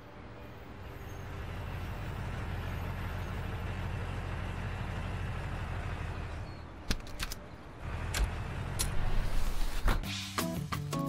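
Cartoon fire-truck engine sound effect: a steady low engine hum as a small fire truck drives up, broken by a few sharp clicks about two-thirds of the way through. Light music starts near the end.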